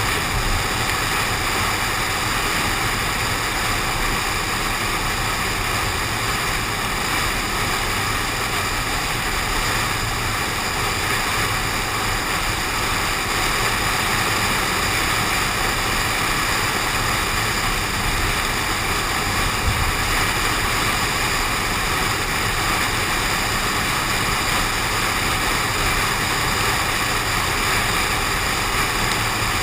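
Steady, unbroken rushing noise of a car driving in the rain, picked up by a GoPro suction-cupped to the car's window.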